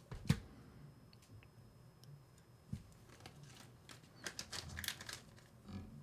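Faint handling noise from stiff heavy monofilament leader line and a small metal crimp sleeve being worked by hand. A sharp click comes near the start, then a scatter of light clicks and rustles in the second half.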